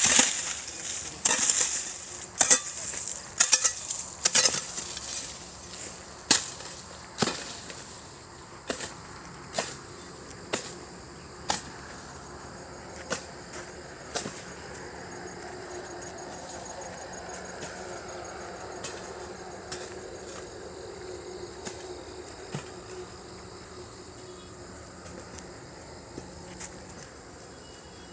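Crickets chirping steadily in high, continuous tones, with a run of sharp knocks or taps, about two a second at first, then sparser, dying out about halfway through.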